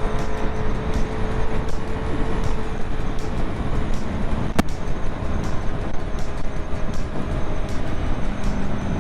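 Honda CB650R's inline-four engine running steadily under way, mixed with heavy road and wind noise. A single sharp click comes about halfway through.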